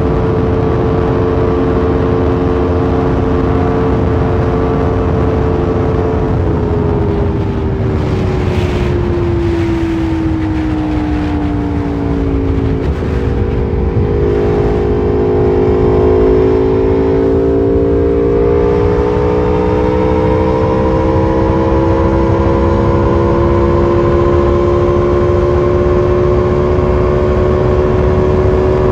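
Motorcycle engine under way. Its note holds steady, then from about six seconds in drops for several seconds as the bike eases off, and climbs slowly back up through the rest. A constant low rush runs underneath.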